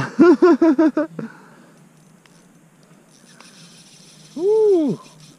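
A man laughing in a quick run of five or six loud 'ha' bursts, then after a few quiet seconds a single drawn-out vocal 'ooh' that rises and falls in pitch, about four and a half seconds in.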